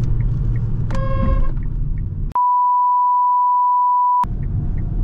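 A pure steady censor bleep lasts about two seconds and blanks out everything else, dropping in over low car-cabin road rumble with faint regular ticking. About a second in, a short pitched beep with overtones sounds over the rumble.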